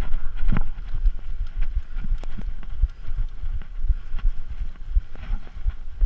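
Mountain bike riding over a rough dirt trail, heard from a handlebar-mounted camera: wind rumbles on the microphone and the bike rattles and knocks over bumps throughout.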